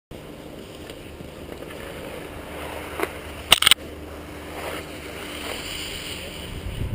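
Skis and boots shuffling and scraping on packed snow while a skier ducks under a rope, with a brief loud clatter of knocks about three and a half seconds in.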